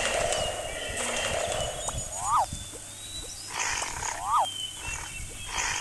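Animal-call sound effects, looped. A short call that rises and falls in pitch repeats about every two seconds, over rough roaring and growling.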